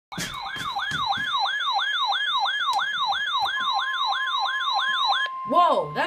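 Weather alert radio sounding a winter storm warning with a siren alarm of quickly repeated falling sweeps, about three a second. About halfway through, a steady high tone joins in: the NOAA Weather Radio 1050 Hz warning alert tone. The siren stops shortly before the end while the steady tone goes on.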